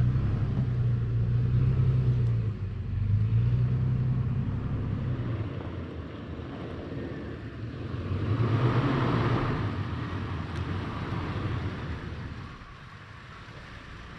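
Toyota FJ Cruiser's V6 engine running at low speed off-road, its low drone swelling and easing. A broad rushing noise rises about eight seconds in and dies away by the end.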